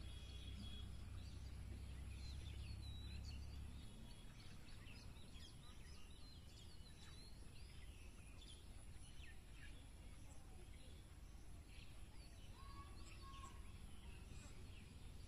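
Faint outdoor ambience: scattered short chirps of birds, with a low rumble that fades about four seconds in.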